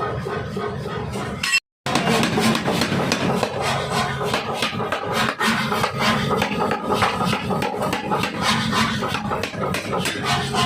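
Pneumatic forging hammer striking a workpiece in a fast, steady run of sharp blows, several a second. Music plays for the first second and a half, then breaks off suddenly before the hammering.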